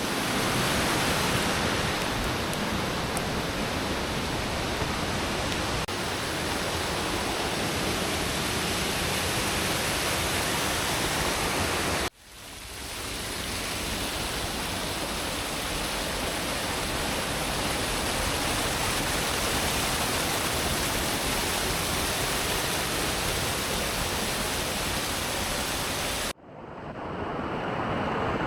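Steady rushing of falling water from the Eifersbach waterfall and its stream, dense and even. It drops away abruptly twice, about twelve seconds in and near the end, and swells back within a second or two each time.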